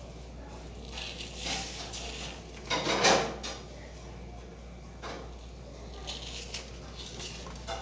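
Fingers crushing and rubbing soft, dry sand lumps, giving short, uneven bursts of crumbling. The loudest crumble comes about three seconds in.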